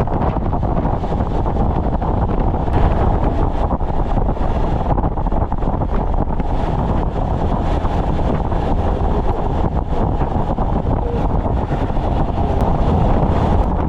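Steady wind rushing over the microphone of a motorcycle riding at road speed, with the bike's running noise beneath it.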